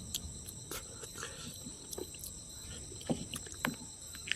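Someone eating: scattered short chewing and lip-smacking clicks, a few louder ones near the end, over a steady high insect trill.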